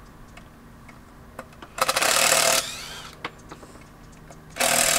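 Power drill driving screws into wooden boards: two short runs of under a second each, about two seconds in and near the end, the motor's pitch falling as each run stops.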